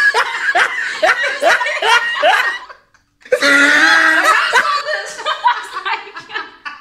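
Two women laughing hard in rapid, repeated bursts. The laughter breaks off briefly about three seconds in, then starts up again loudly and tapers off.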